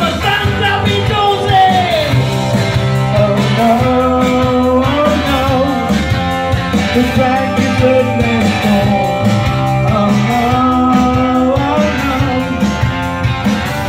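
Live rock and roll: a cream SG-style electric guitar strummed through an amplifier while a man sings into a handheld microphone.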